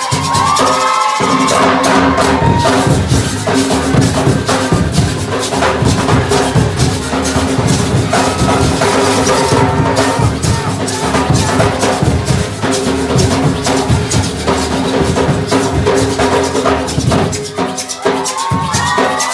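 School percussion band playing: large hand drums and metal shakers driving a fast, dense, steady rhythm.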